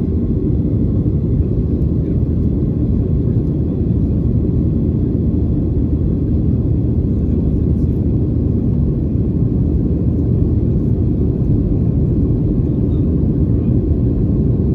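Steady low rumble inside the cabin of a Boeing 737-800 climbing after takeoff: its CFM56-7B engines and the airflow over the fuselage, with no change in level.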